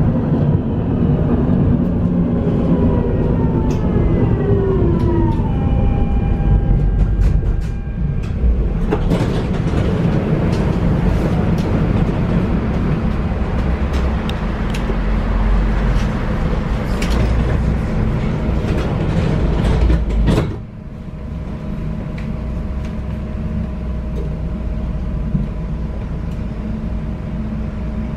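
Tram running: the electric traction drive's whine falls in pitch over the first few seconds as it slows. Then comes a heavier rumble of wheels on rail with scattered clicks, which cuts off abruptly about twenty seconds in, leaving a steadier hum with a constant tone.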